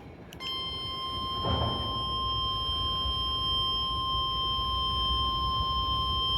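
NOAA Weather Radio 1050 Hz warning alarm tone: a single steady, unwavering high tone that starts about half a second in and holds, signalling that a warning message is about to be broadcast.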